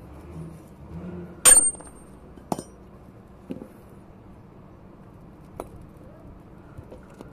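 Metal tools and parts clinking during brake servo work: one sharp clink with a short bright ring about a second and a half in, another about a second later, then a few fainter knocks.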